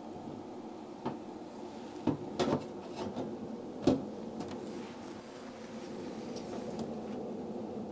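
Hands handling a desktop PC case on a wooden shelf: a few knocks and some rubbing, the loudest knock about four seconds in, over a steady hum.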